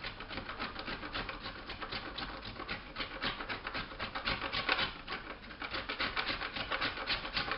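A block of dark chocolate being grated on a cheese grater: quick, even scraping strokes, several a second.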